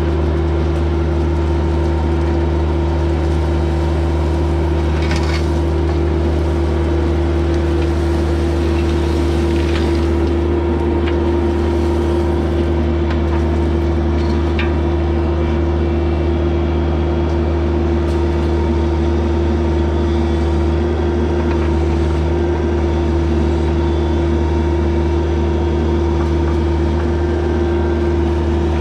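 Mini excavator's diesel engine running at a steady, unchanging speed.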